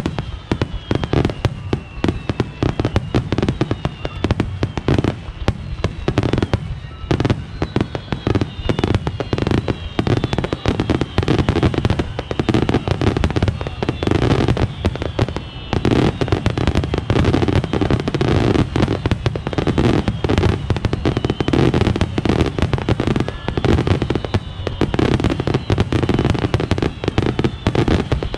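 Fireworks barrage: many aerial shells bursting in rapid, unbroken succession, a dense run of booms and crackles with only brief dips.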